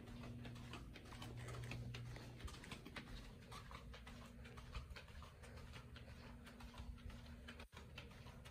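Quiet indoor room tone: a steady low hum with faint, irregular ticks and rustles from someone walking with a handheld phone.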